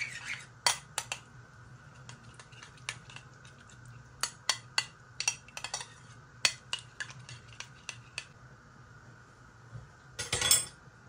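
A utensil beating duck eggs and yogurt together on a china plate, its tip clicking irregularly against the plate. A brief, louder clatter near the end.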